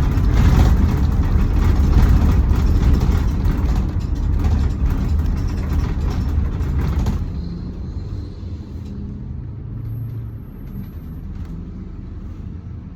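Road vehicle in motion: loud, dense road and engine noise. About seven seconds in it drops off suddenly, leaving a quieter low rumble.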